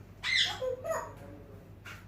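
African grey parrot vocalizing: a short harsh call about a quarter second in, followed by a couple of brief lower pitched notes.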